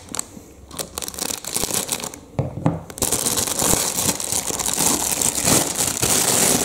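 Thin clear plastic packaging bag being cut with scissors and pulled apart: a few sharp snips and crackles at first, then continuous loud crinkling of the plastic from about three seconds in as the toy car is worked out of the bag.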